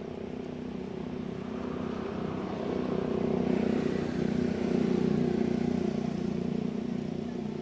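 Steady engine hum of a passing motor vehicle, growing louder to its peak about halfway through and then fading.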